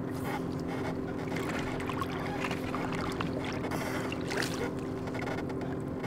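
Minn Kota iPilot electric trolling motor running with a steady hum.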